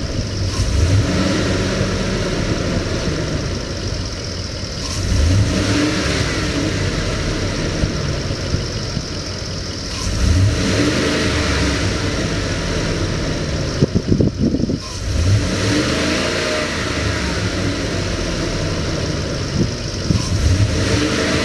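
Ford F-250 pickup engine running at idle and revved up several times, about every five seconds, each rev rising and settling back to idle. A few sharp clicks are heard just past the middle.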